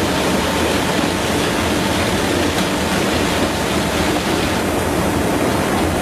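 Brush-roller potato washing and peeling machine running with its water spray on, a loud steady rushing noise.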